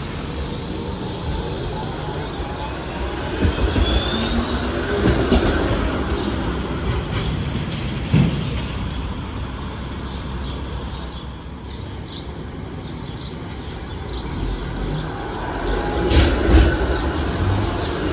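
Streetcar running on its rails, the wheels squealing high and steadily for the first few seconds, with a brief rising squeal. Clicks and knocks of the wheels over track joints follow, loudest near the end.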